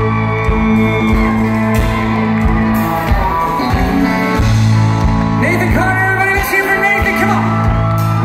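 Live country band playing a song: drum beats, held bass notes, and fiddle, guitar and keyboard melody lines, with some singing or shouting, heard from the audience in a large hall.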